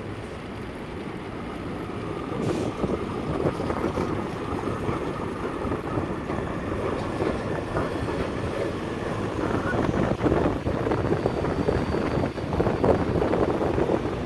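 Vienna tram running past on street track: a steady rumble of steel wheels on the rails, with scattered clicks over the joints.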